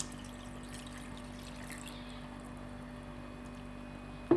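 Water being poured into a pot of whole dates for about the first two seconds, over a steady low hum. A single sharp knock comes near the end.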